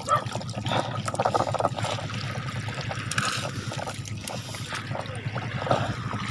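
Water trickling and splashing as a wet fishing net is hauled by hand out of the lake over a boat's side, with a steady low hum underneath.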